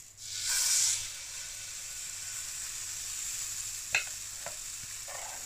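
Pancake batter sizzling loudly as a ladleful hits the hot frying pan, settling into a steady frying hiss. Two light clicks about four seconds in.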